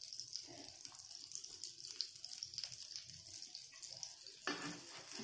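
Egg martabak frying in oil on a flat pan, a faint steady high sizzle. A short louder scrape or clack near the end as a spatula is brought to the pan.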